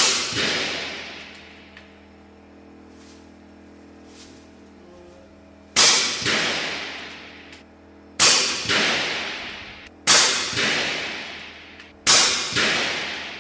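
Shots from a .22 FX Impact M3 PCP air rifle, each a sharp crack followed by a long echoing decay inside a steel shipping-container range. One comes right at the start, then four more about two seconds apart from about six seconds in.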